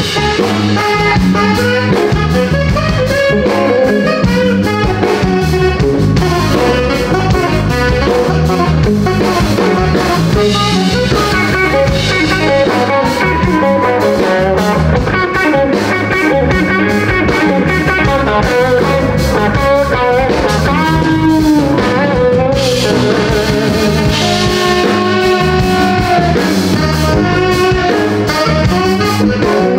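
Live blues band playing, with guitar and drum kit over a steady groove.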